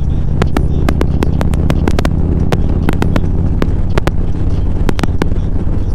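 Steady low drone of a road vehicle's engine and running gear, heard on board while riding. Sharp clicks come at irregular spacing through it, about three a second.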